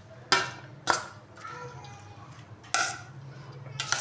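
Metal spoon clinking against a stainless steel bowl while mixing a salad: four sharp clinks, two in the first second and two in the last second and a half.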